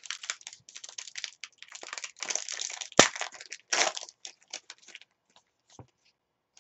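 Foil trading-card pack crinkling and being torn open in the hands, with one sharp snap about three seconds in. A few light ticks follow as the cards inside are handled.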